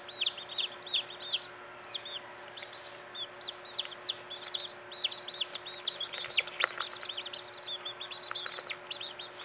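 Several newly hatched Silkie chicks peeping in a brooder: quick, high, arching peeps, one after another. They thin out for a couple of seconds after the start, then pick up again.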